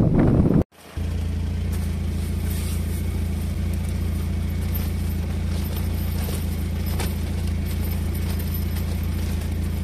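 Strong wind blowing across the microphone on open ice for under a second, then cut off sharply. It is followed by a steady low rumble inside a small ice-fishing tent that the strong wind is shaking, with a few faint clicks.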